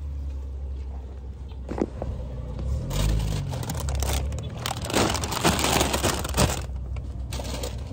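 Grocery items and bags being handled in a car's cargo area: plastic bags rustling and crinkling, loudest in the middle, with a few sharp knocks of cartons being set down, over a steady low rumble.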